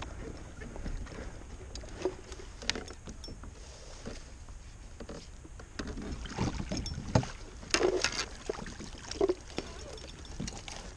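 A striped bass being fought alongside a plastic kayak and scooped into a landing net: scattered knocks, clatter and water splashes, busiest in the second half, over a steady low wind rumble on the microphone.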